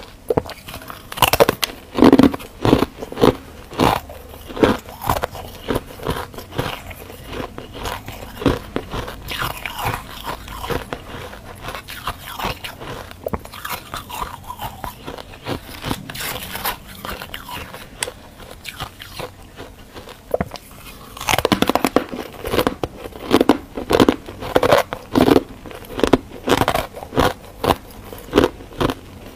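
A person biting and chewing frost-covered freezer ice: a run of crisp, irregular crunches that come thickest and loudest over the last third.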